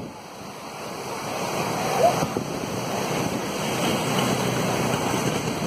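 Floodwater of the Cauvery river rushing and churning over rocks in a steady roar of white noise that builds in loudness, with wind buffeting the microphone.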